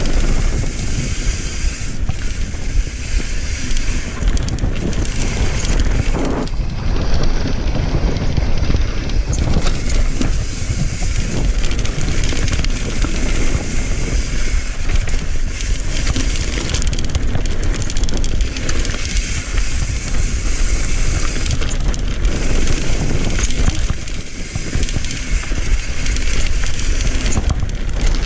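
Mountain bike riding fast down dirt singletrack: wind buffeting the camera microphone over the rumble of knobbly tyres on dirt, with a constant fine clatter from the bike over rough ground.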